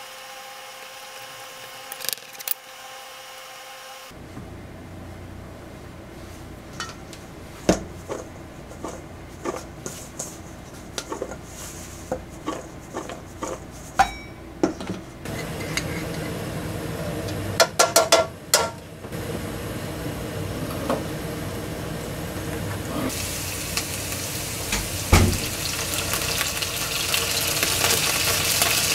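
Scattered light clicks and knocks of kitchen prep work, then for the last several seconds oil sizzling in a frying pan as canned mackerel is tipped into garlic-ginger oil, with one sharp knock partway through the sizzle.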